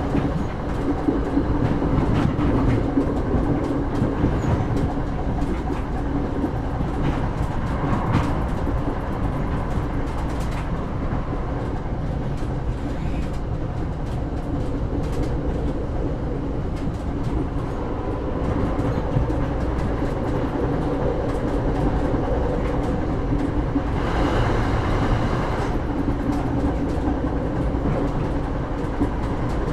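Passenger train running along the line, heard from aboard: a steady rumble of the carriage with scattered clicks of the wheels over the rails. About twenty-four seconds in a brighter hiss rises briefly over the rumble.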